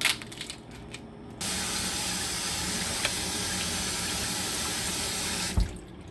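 A few crunching cracks as a cooked Dungeness crab's shell is broken in half, then a kitchen faucet running water onto the crab half and into a stainless steel sink for about four seconds, cut off near the end with a thud.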